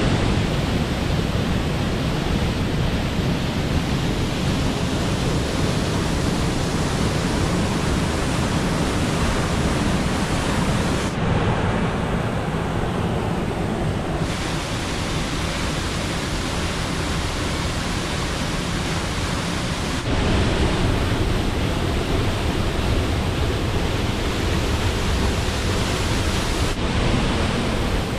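Heavy rushing water of a waterfall and its stream in spate after monsoon rains, a steady loud wash. Its balance changes abruptly a few times, about every few seconds to ten seconds.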